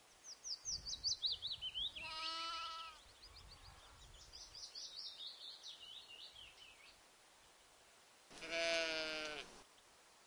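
Sheep bleating twice: a short quavering bleat about two seconds in and a louder, longer one near the end. Between them a small bird sings two runs of quick notes that fall in pitch.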